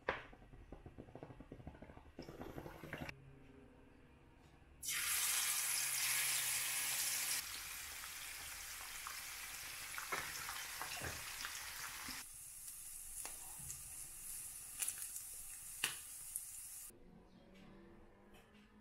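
Spice-coated fish sizzling in hot oil in a frying pan: the sizzle starts suddenly and loud about five seconds in, then carries on more quietly with a few pops, stopping shortly before the end.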